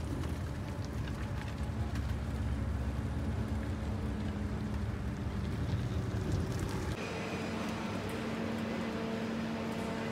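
Low, uneven outdoor rumble, then after a cut about seven seconds in, the steady hum of a factory hall's machinery and ventilation with a few held tones.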